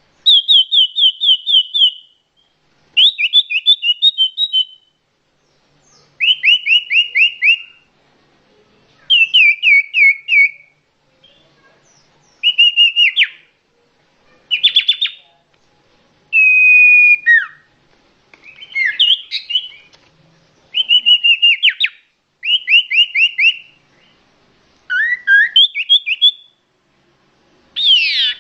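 Common iora calling: bursts of rapid, clear, high repeated notes, each burst lasting one to two seconds and recurring every three seconds or so, with a few differently shaped phrases in between.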